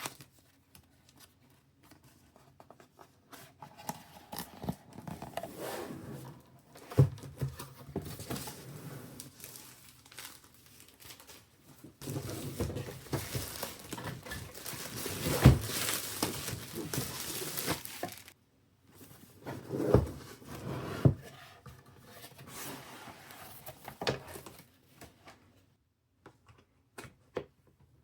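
Plastic packaging being crinkled and torn open by hand, with a dense burst of crinkling in the middle that stops abruptly, and a few sharp knocks of parts being handled.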